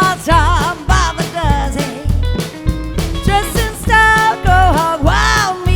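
Live country band music: a singer holding wavering notes over guitar, bass and drum kit keeping a steady beat.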